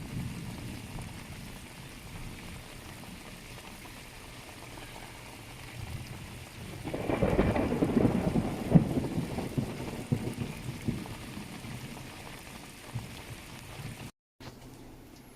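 Heavy rain falling steadily, with a low rumble of thunder that swells about seven seconds in and dies away over several seconds.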